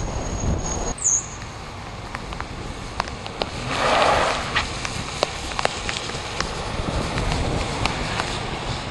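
Wind and rain of a tropical storm: a steady rushing hiss with scattered sharp raindrop ticks and a brief louder rush about four seconds in. Heavy wind buffeting on the microphone in the first second.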